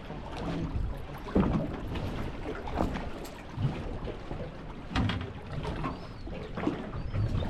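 Water slapping against the hull of a small fishing boat, with wind buffeting the microphone and a few irregular knocks on the boat.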